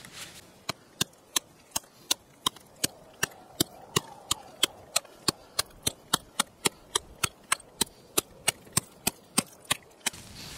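Chopping a hole through lake ice about two inches thick: a steady run of sharp chops, roughly three a second, starting just under a second in and stopping shortly before the end.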